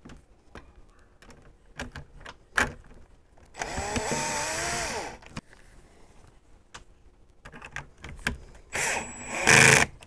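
Cordless drill driver driving small screws, running in short bursts with a wavering motor whine: one run of about a second and a half a little over three seconds in, and louder short bursts near the end, with light clicks of handling between.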